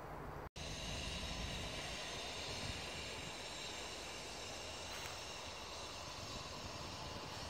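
Steady outdoor background noise, a hiss with a low rumble under it, broken by a brief dropout about half a second in.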